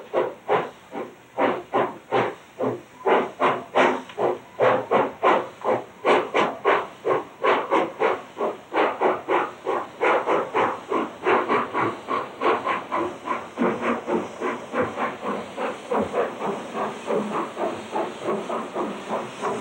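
Baldwin-built cog-railway steam locomotive of the Manitou and Pike's Peak Railway chuffing as it works, with steam hissing from the cylinders. The exhaust beats come evenly, about three a second, a little closer together in the second half.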